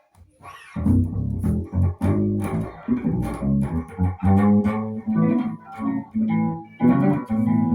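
Strinberg SAB 500 electric bass played through a small, well-used amplifier and picked up by a phone: a run of plucked bass notes with sharp attacks, starting about a second in.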